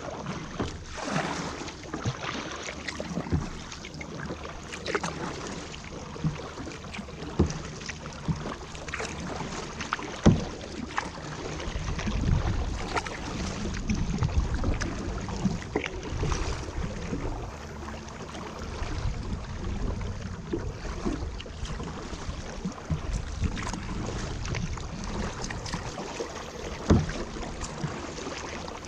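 Kayak under way on a river: paddle splashes and water lapping and slapping at the hull, with irregular small splashes and knocks. Wind rumbles on the microphone for a few seconds around the middle.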